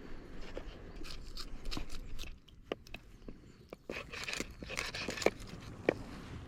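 A kitchen knife cutting and scraping through a fish being filleted, with irregular short crunches and scrapes.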